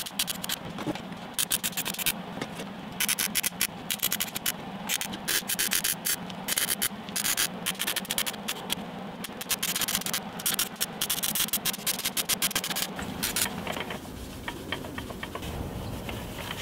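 Arc welding on 3-inch exhaust tubing: the arc crackles in runs of a second or two with short breaks between welds, over a steady hum. Near the end the crackling stops and a quieter rustle follows.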